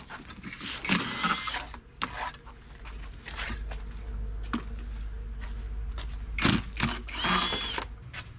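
Cordless drill running in short bursts as it unfastens the bolts on the flanges of a concrete planter mould, with sharp knocks in between.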